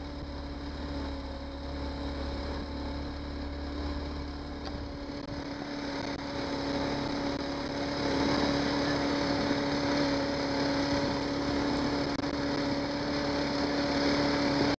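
Johnson 90 hp outboard motor running steadily at cruising speed, a constant drone over the rush of water and wind. It grows somewhat louder past the halfway point.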